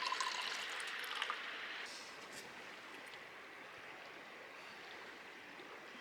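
Steady rush of flowing water, a river or stream, that drops a little in level about two seconds in, with a few faint clicks near the start.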